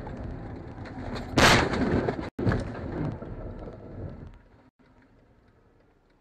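A car collision heard from inside a dash-cam car. A sudden loud crash impact comes about a second and a half in, followed by roughly three seconds of crunching and scraping noise. The noise then stops abruptly and drops to a faint level.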